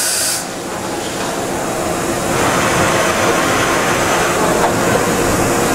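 Okuma MC-50H CNC horizontal machining center running through a dry-run program: steady mechanical running noise with a hiss that grows louder about two seconds in.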